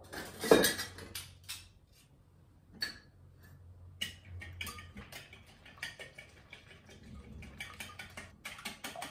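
A utensil clatters as it is taken from a utensil pot, then, from about four seconds in, fast, steady ticking and scraping as crepe batter of flour, eggs and milk is beaten by hand in a glass bowl.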